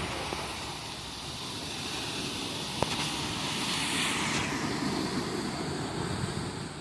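Ocean surf on a beach: a steady low rumble of waves with a hiss of washing foam that swells about two seconds in and falls away about halfway through. A single short click near the three-second mark.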